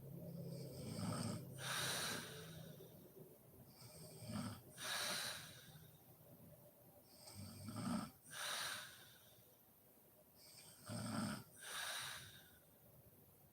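A sleeping woman snoring: four breaths about three seconds apart, each a short low snore followed by a breathy exhale.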